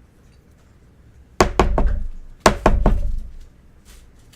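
Two clusters of knocks and thuds about a second apart, each made of a few quick, sharp hits.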